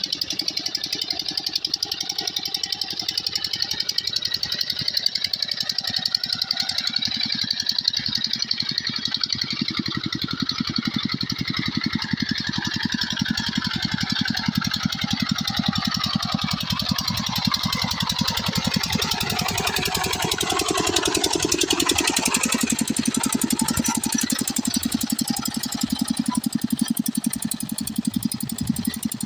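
Single-cylinder diesel engine of a two-wheel hand tractor running steadily under load as it pulls through rice-paddy mud, with fast, even firing pulses. It grows a little louder about two-thirds of the way in.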